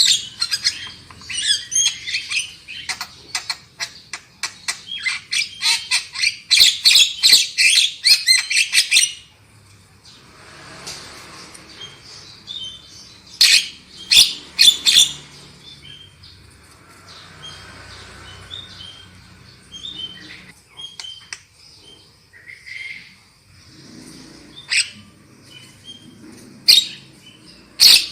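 Javan myna calling: a dense run of loud, harsh chattering calls for about the first nine seconds, then softer scattered chirps broken by a few loud harsh bursts in the middle and near the end.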